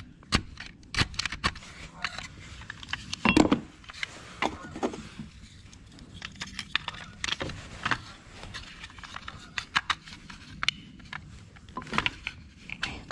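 Hard plastic switch panel being trimmed with a utility knife and then handled: an irregular string of sharp clicks, scrapes and knocks, loudest about three seconds in.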